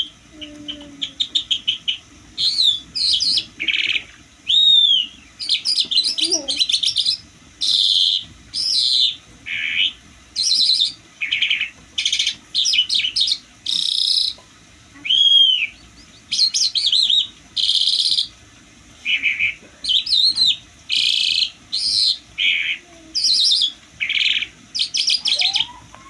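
Caged lark singing: a long run of short, varied phrases of fast trills, warbles and slurred whistles, each about half a second to a second long, with brief pauses between.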